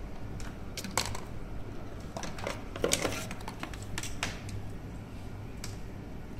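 Light clicks, taps and rattles from the boxed EM lock and its small parts being handled on a desk, a scattering of sharp ticks that is busiest around the middle.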